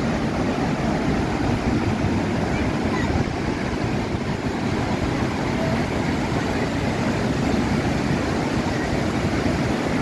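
The Bad Gastein waterfall on the Gasteiner Ache rushing down its rock cascade, a loud, steady roar of white water.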